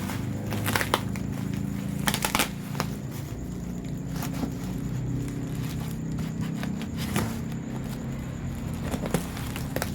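A steady low hum with scattered sharp clicks and light crackles over it, a quick run of clicks about two seconds in.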